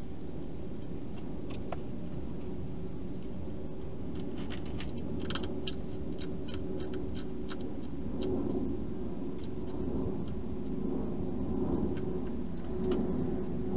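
A wild hedgehog eating inside a plastic feeding box: crisp crunching clicks, thickest from about four to eight seconds in, over a steady low rumble.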